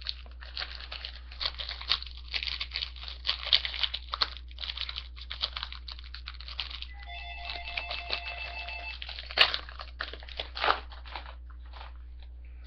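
Hockey card pack wrapper crinkling and tearing open, with cards rustled and shuffled by hand in quick irregular crackles, the loudest about nine seconds in. A short electronic chime of a few stepped tones sounds for about two seconds partway through.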